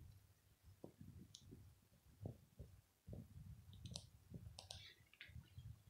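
Near silence: quiet room tone with soft low thumps and a few faint clicks, most of the clicks coming together past the middle.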